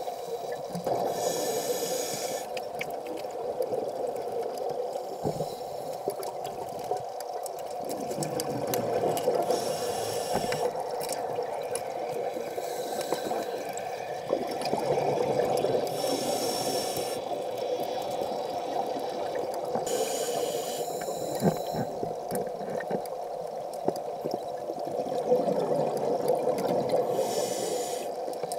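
A scuba diver's regulator breathing underwater, heard muffled through the camera housing: bursts of exhaled bubbles about every five to seven seconds over a steady hum.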